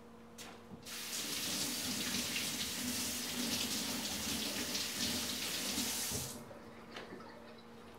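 Kitchen tap running at full flow for about five seconds, then turned off.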